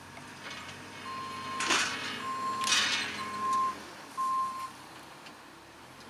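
JCB 542-70 Agri Xtra telehandler's reversing alarm beeping four times, about once a second, over its running engine as it backs away. Two short, loud rushing noises come early in the beeping.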